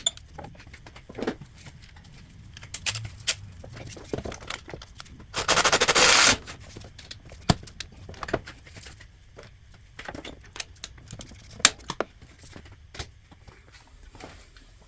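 A ratchet wrench clicks very rapidly for about a second near the middle, running down the bolt of a new serpentine belt tensioner. Scattered metallic clinks and knocks from handling the tools and parts come before and after it.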